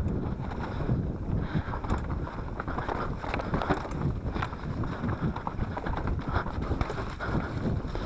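Wind buffeting the microphone over the rattle and clatter of a mountain bike's tyres and frame rolling fast over loose rocks, with many small knocks throughout.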